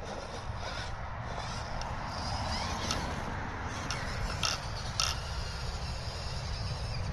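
FTX Ravine RC rock crawler's on-axle electric motor and gears whirring as it crawls over dirt. A few sharp clicks come about three to five seconds in.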